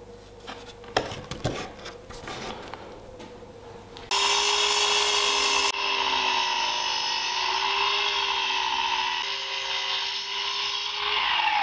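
A few light knocks of wood being handled, then about four seconds in a mitre saw starts up and runs steadily, its blade cutting through a small block of oak. The motor's pitch drops near the end.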